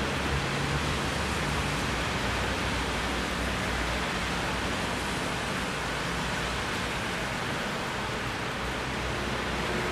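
Steady rain falling as an even, unbroken hiss, with a faint low rumble underneath.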